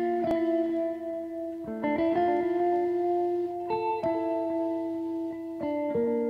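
Slow instrumental background music: held chords, with guitar-like plucked tones, that change about every two seconds.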